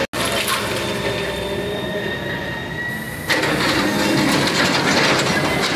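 Hydraulic excavator working, its engine and hydraulics running with a steady whine, while its bucket crushes concrete slab and brick masonry and rubble crunches and clatters down. The crunching and crashing turns louder and denser about three seconds in.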